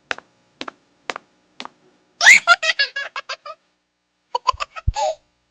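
Four light, sharp clicks about half a second apart, then a high, childlike giggle that rises into a quick stuttering laugh. Near the end comes a second short giggle with a dull thud.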